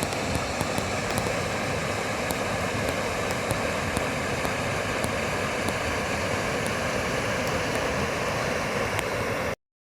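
South Yuba River's rushing water, a steady, even roar, with a few faint high ticks over it; it cuts off suddenly near the end.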